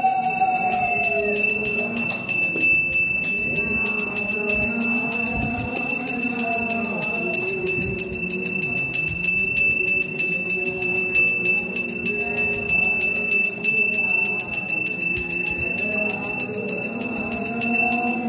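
A puja hand bell rung rapidly and without pause, its high ringing tone held steady throughout, with voices underneath.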